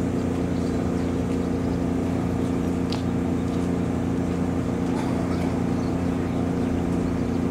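Idling diesel truck engine, a steady low hum that does not change, with a faint click about three seconds in.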